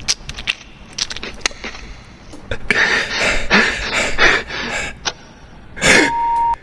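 Beatboxer imitating film sound effects with the mouth: a run of sharp clicks, then a series of breathy hissing bursts, ending in a short falling sweep and a briefly held high tone.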